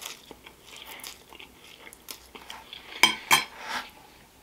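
Close-miked eating of pasta, with soft mouth noises and chewing. About three seconds in, a metal fork clinks sharply twice against a ceramic plate as it is set down.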